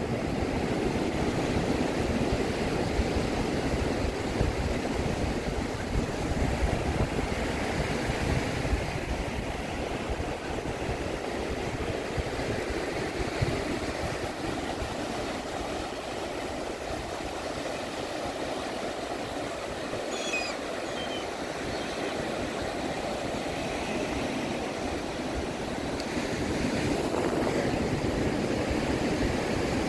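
Waves breaking and washing up a sandy beach in a steady rush, with a rough low rumble underneath.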